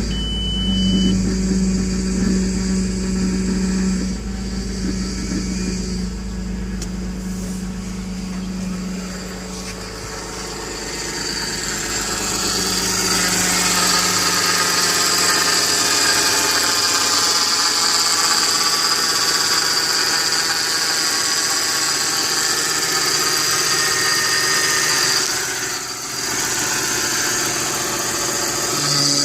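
2003 Audi A4 3.0 Quattro's V6 engine running with a loud, high-pitched squealing whine that builds in about ten seconds in and holds steady, dipping briefly near the end; the owner does not know its cause.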